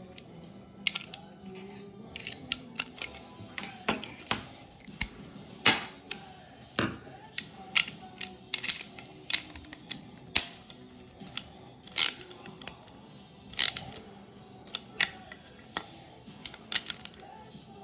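Irregular sharp metallic clicks and taps of small tools and parts on a loose-ball bicycle pedal's axle as its nuts are worked on, over faint background music.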